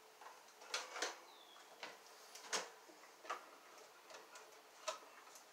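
Sharp, irregularly spaced clicks of wire strippers and pliers working the stripped ends of electrical cable at a metal junction box, about seven in all.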